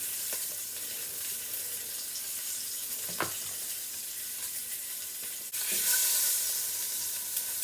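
Lamb shanks sizzling as they brown in hot olive oil in a tall pot, a steady spitting hiss. The sizzle jumps louder about five and a half seconds in.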